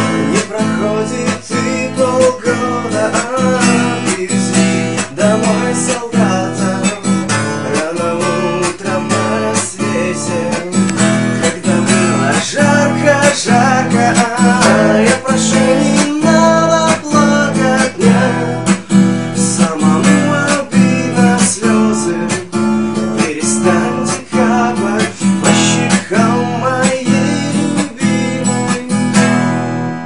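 Acoustic guitar strummed in a steady rhythm, playing a song.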